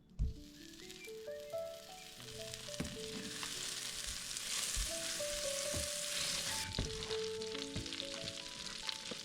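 Food sizzling in hot oil in a pan, the sizzle building after a sharp knock at the start and easing somewhat later on, with a few knocks of a utensil against the pan. A soft background melody plays over it.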